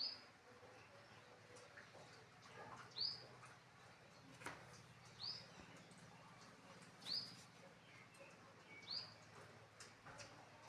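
A small animal's short, high-pitched squeaking call, each rising then falling, repeated five times at intervals of about two seconds, with a single sharp click about halfway through.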